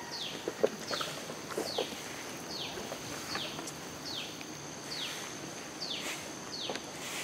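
Tropical forest ambience: a high, falling call repeated over and over, about one every three-quarters of a second, over a steady high-pitched insect drone. A few soft knocks and rustles come through lower down.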